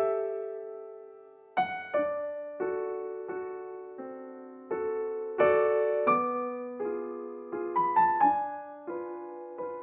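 Background music: slow, gentle piano, single notes and chords struck one after another and left to ring and fade.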